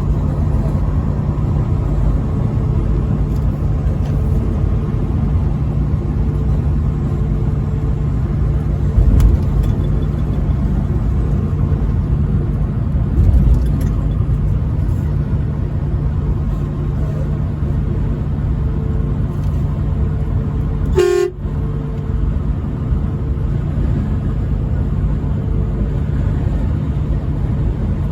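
Steady road and engine noise from a truck driving on the interstate, with a steady low drone and a couple of low bumps. About three quarters of the way through, the truck horn gives one short blast.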